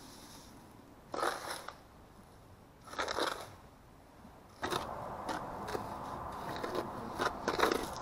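Dry sand poured from a plastic cup into a plastic mixing tub, two short gritty pours; then, from about halfway in, steady gritty scraping as the dry mix of sand and Portland cement is stirred in the tub with a trowel.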